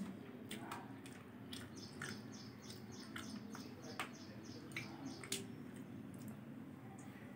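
Faint sounds of a person eating with the fingers: soft chewing, lip smacks and small mouth clicks. A run of quick, evenly spaced high chirps sounds in the background from about two to five seconds in.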